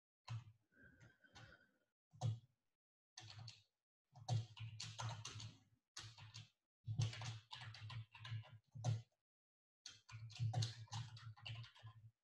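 Faint typing on a computer keyboard, keystrokes coming in quick runs with short pauses between.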